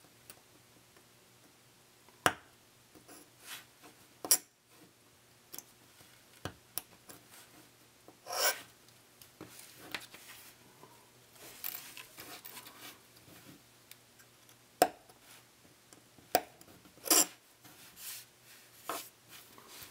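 Small plastic coupler plates from an HO scale boxcar kit being trimmed and smoothed by hand: scattered sharp clicks and snaps with short scraping, rubbing strokes between them.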